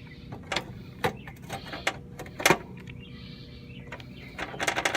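Scattered clicks and knocks of hand tools and metal parts being handled inside an air-conditioner condenser unit. The sharpest knock comes about two and a half seconds in, and a quick run of rattling clicks comes near the end.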